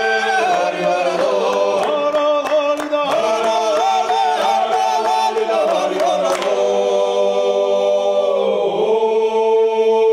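Georgian male choir singing a Kartli dance song (satsekvao) a cappella in several parts over a steady low drone, with rhythmic hand claps. About six and a half seconds in the claps stop and the voices settle into a long held closing chord.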